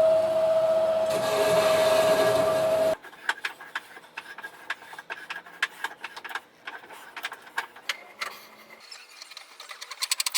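A power tool's motor running with a steady whine, stopping abruptly about three seconds in, followed by faint irregular clicks and taps of metal work.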